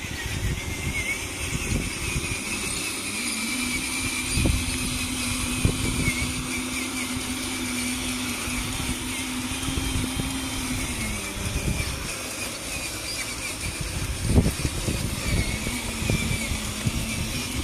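Small electric motors of radio-controlled construction models whining steadily, the pitch dropping away about eleven seconds in and coming back near the end, with irregular low knocks throughout.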